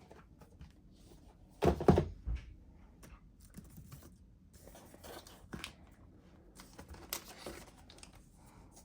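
Unboxing handling of cardboard packaging: two dull thunks about two seconds in, a smaller one just after, then scattered rustling and rubbing of cardboard and paper as the box's contents are lifted out.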